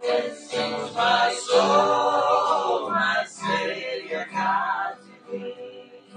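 Voices singing a worship song, accompanied by a repeating, plucked acoustic guitar pattern.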